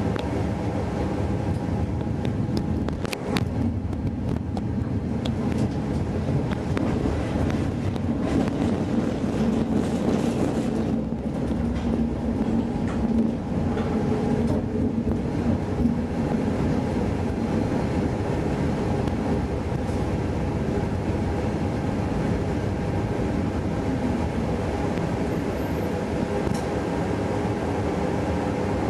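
Helsinki tram running along its rails: a steady wheel-on-rail rumble with motor tones, with a few sharp clicks over the track a few seconds in and busier running through the middle as it takes a curve.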